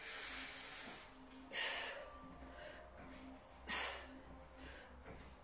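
Hard exhalations from a person exercising: three sharp breaths, a couple of seconds apart, as she lifts through weighted V-sit crunches. The breathing is the effort of the exercise.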